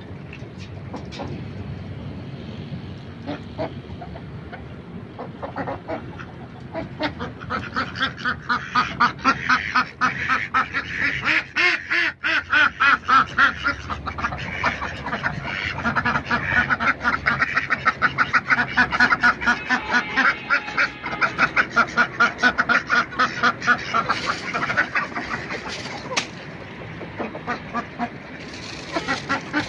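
Domestic ducks quacking in a long, rapid run of repeated quacks. It builds up several seconds in and dies down near the end.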